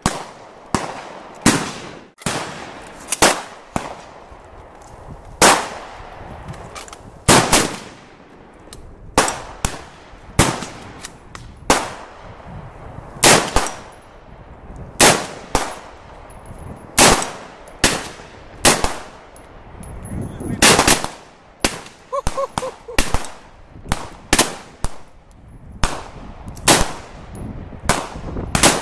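Olympic Arms AR-15 rifle firing single semi-automatic shots at an irregular pace, one every half second to two seconds. Each shot is a sharp crack with a short echoing tail.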